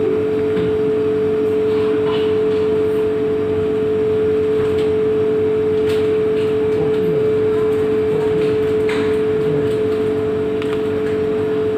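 A steady machine hum with one strong, unchanging tone, with a few faint clicks over it.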